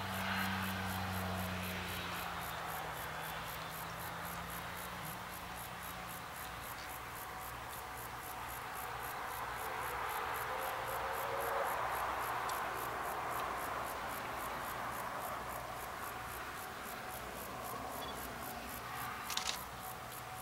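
Steam locomotive C58 working as it approaches from afar. A hiss of steam swells about ten seconds in, while white steam shows at the cylinders, which marks open cylinder drain cocks. A low hum fades over the first few seconds, and insects chirp steadily throughout.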